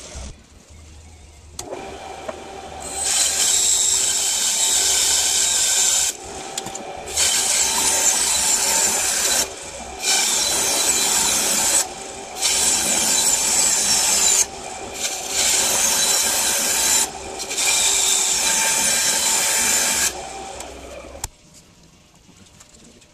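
Midi wood lathe running while a turning tool cuts the spinning hardwood blank in six loud, hissing passes of two to three seconds each, with short breaks between them. The lathe starts a couple of seconds in and shuts off near the end.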